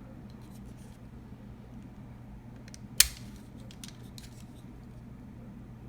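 Small plastic camera being handled: light clicks and rustles, with one sharp click about three seconds in, as the protective film is worked at.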